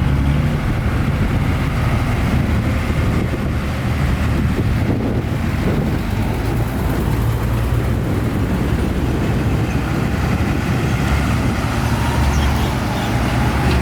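Heavy diesel engine of a dump truck or bulldozer running steadily, with a low rumble.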